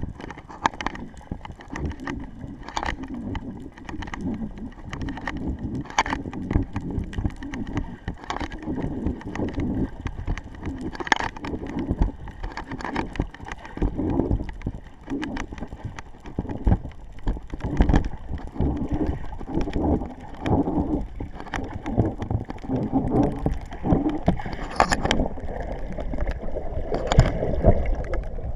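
Water movement heard underwater by an action camera's microphone inside its sealed body: a muffled low rumble and gurgle, broken by irregular clicks and knocks.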